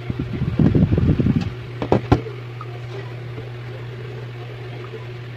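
Handling noise from a smartphone being picked up and moved in the hand, with rustling and bumping for about a second and two sharp clicks about two seconds in, over a steady low hum.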